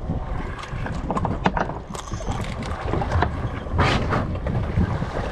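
Scattered knocks and clatter on the deck of a fishing boat over a steady low rumble of wind and water, with a louder rush of noise about four seconds in.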